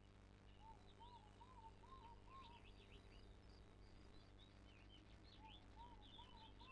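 Faint birdsong: a bird repeats a short series of arched whistled notes twice, with scattered higher chirps, over a steady low hum.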